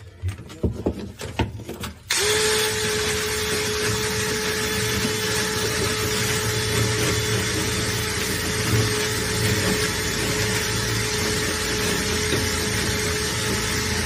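A few knocks and clicks, then about two seconds in a motorised vent-cleaning tool switches on abruptly and runs steadily with a constant whine.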